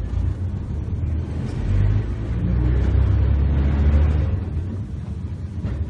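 Heritage electric tram running on its rails, a low rumble that swells to its loudest about four seconds in, then eases slightly.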